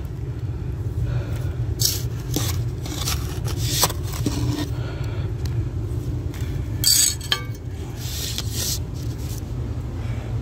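Gloved hand scooping and scraping loose dirt and gravel out of a hole around a buried sewer pipe, in irregular short scraping strokes over a steady low hum.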